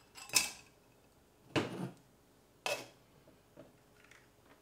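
Three sharp clinks of glass and stainless-steel bar tools: a lump of ice tipped from a cocktail glass into a metal shaker tin, then the glass and the shaker's strainer top handled and knocked together as the shaker is put together.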